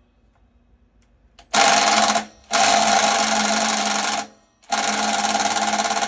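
Ryobi 18-volt cordless impact driver hammering on a water heater's seized anode rod through a deep socket, working to break it loose. It starts about a second and a half in and runs in three bursts with brief pauses between them.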